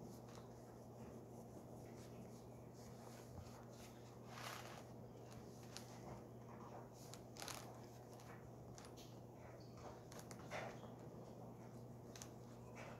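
Faint scratchy, rustling strokes of oil pastel rubbed on paper, coming in short scattered bursts over a low steady hum.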